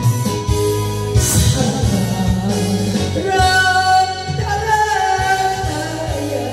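A woman singing into a handheld microphone over a backing track with a steady beat.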